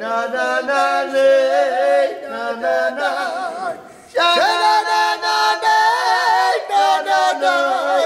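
Unaccompanied singing voice holding long, wavering notes with small runs between them, breaking off briefly about four seconds in, then starting again.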